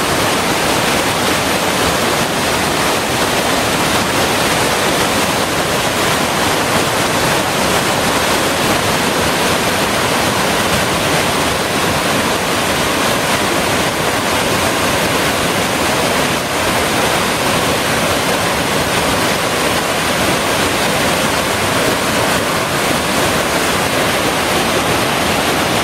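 Waterfall on a creek: a steady, loud rush of falling water.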